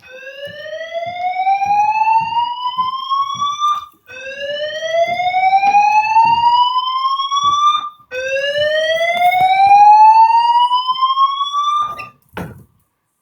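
Building fire alarm sounding a slow rising whoop evacuation tone: three sweeps, each climbing in pitch for about four seconds before cutting off and starting again. A brief knock comes just after the third sweep.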